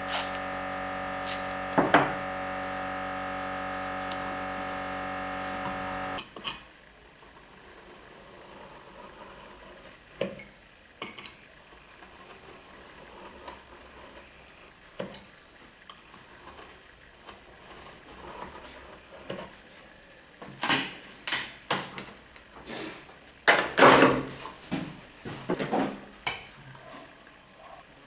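Snap-off utility knife drawn along a steel rule, cutting through wood veneer in a run of short scraping strokes in the last third, with light clicks of the rule and knife before them. A steady hum with several pitches runs at the start and cuts off suddenly about six seconds in.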